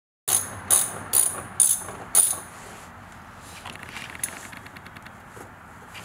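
Ratchet socket wrench on an extension tightening the taillight's Torx bolts: five quick ratcheting strokes in the first two seconds, then fainter clicking.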